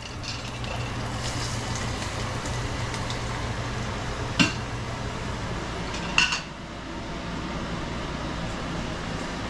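Stainless steel cookware clinking twice, sharply, about four and six seconds in, over a steady hiss.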